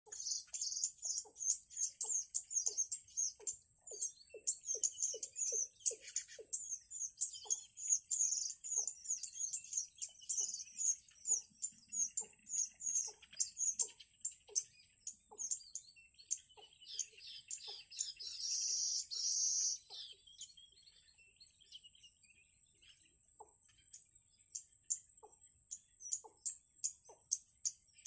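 Rapid, high-pitched bird chirping, dense in the first half and thinning out after that, over a steady high whine, with soft low ticks about two a second. A short hissing noise about two-thirds of the way in.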